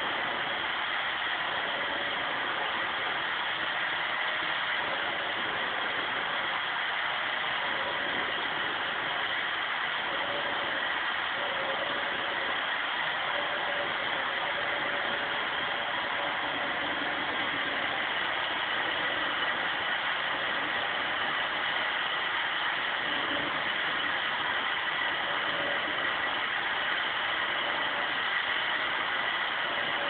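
Vacuum cleaner running steadily, its nozzle drawn over a Rottweiler's coat to suck up loose hair: an even rushing hiss with a constant whine that does not change.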